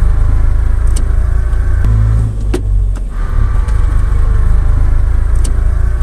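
Inside a moving car: a heavy low rumble with a faint whine over it from the rear differential, the noise that worn internal differential bearings make while driving. The rumble dips briefly about halfway through.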